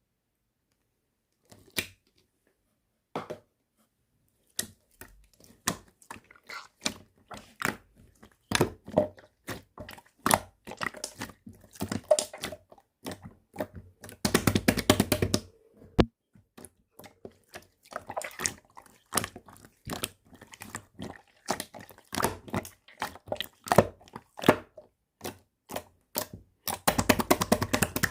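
Slime being pressed, poked and stretched by hand, giving irregular sticky clicks and pops. The sounds begin about a second and a half in and thicken into denser crackling twice, about halfway through and near the end.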